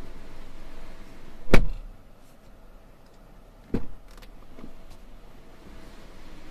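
2019 Cadillac XTS front door worked from inside: a heavy thud as the door shuts about a second and a half in, then a sharper click of the interior handle releasing the latch near four seconds in.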